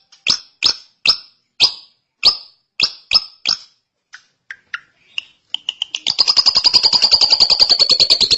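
Drongo (srigunting) singing: a run of sharp, falling whistled calls about two a second, then a few softer notes, and from about six seconds in a fast, rattling trill.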